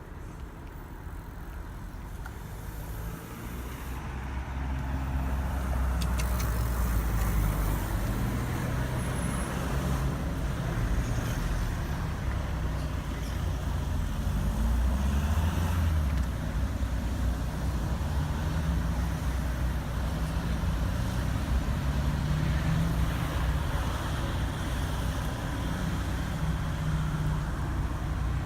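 Road traffic: a motor vehicle's engine running with a low rumble, growing louder over the first several seconds and then holding steady.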